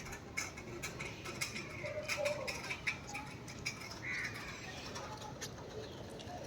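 Outdoor ambience of birds calling now and then, with short pitched calls among scattered light clicks.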